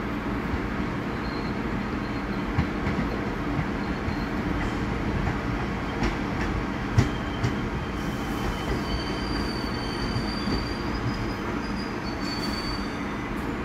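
R62A subway train approaching on the rails, with a steady rumble and a sharp click about seven seconds in. A thin high-pitched squeal sets in about two-thirds of the way through and fades near the end.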